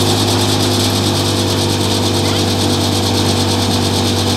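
Tractor-driven grain thresher running steadily: the tractor's engine drone and low hum under the constant whirring hiss of the thresher drum and fans.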